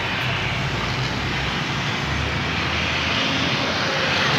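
Steady, even roar of distant engine noise from the surroundings, growing slightly louder near the end.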